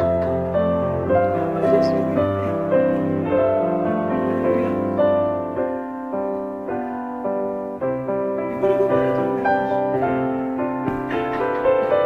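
Background piano music: a melody of held notes played continuously.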